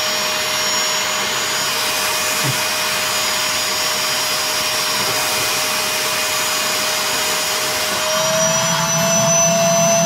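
Vacuum cleaner running steadily, its wand held to the open parcel and sucking out loose packing flakes. About eight seconds in, the motor's whine steps up slightly in pitch and the sound gets a little louder.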